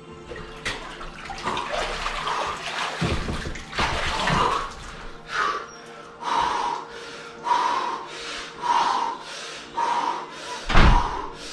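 Icy water splashing and pouring off a man as he comes up and climbs out of a 45-degree chest-freezer ice bath, with heavy thuds. Then hard, rhythmic breaths, about one a second, as he recovers from the cold, and a sharp thump near the end.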